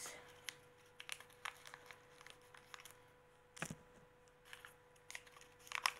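Faint scattered rustles and small clicks of a tiny blind-bag packet being handled and worked open by hand, with a sharper crackle about three and a half seconds in and a quick flurry near the end.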